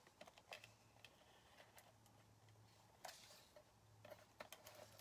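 Near silence: a few faint scattered ticks and clicks from an adhesive roller tape runner being worked along paper, over a faint steady low hum.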